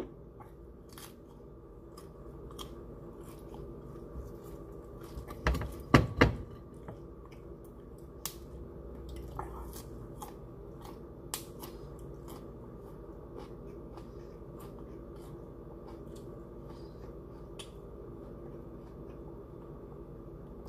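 A person chewing and biting broccoli: scattered short crunches and crackles, with a louder burst of noise about six seconds in, over a steady low hum.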